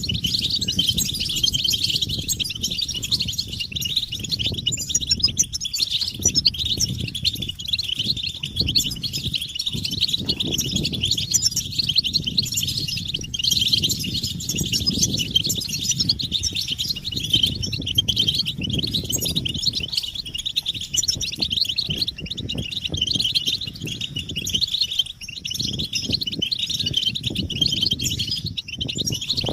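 European goldfinches twittering in a dense chorus of overlapping chirps and trills that never pauses: the group chatter of goldfinch mating and readiness calls, used to stir caged males into song. A low rumbling noise rises and falls underneath.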